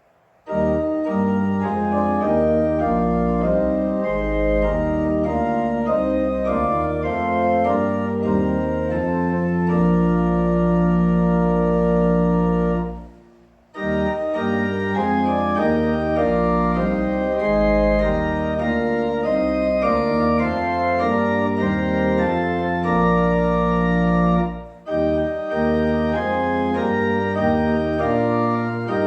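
Organ music played in phrases, each ending on a long held chord, with brief pauses about 13 and 25 seconds in.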